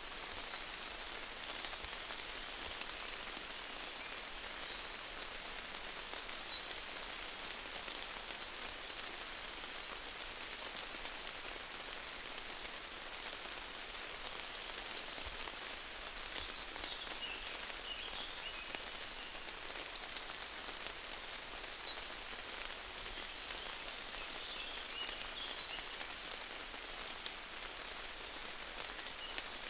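Steady rain pattering, with faint high chirps now and then.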